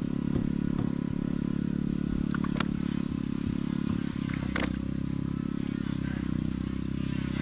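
A small engine running steadily at a constant speed, with two brief clicks about a third and two thirds of the way through.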